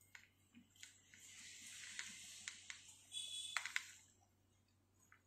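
Faint, scattered light clicks and a soft rustle as the jewellery display pieces are handled, with a cluster of clicks a little past three seconds in.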